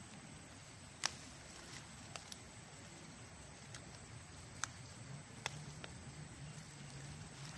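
Four or five faint, sharp clicks spread out over a quiet background, from fresh young leaves being bitten off and chewed.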